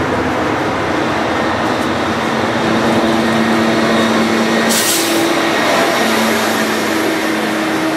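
Diesel engine of a rail maintenance-of-way machine passing close by on the track, a steady engine drone, with a brief sharp hiss of air about five seconds in.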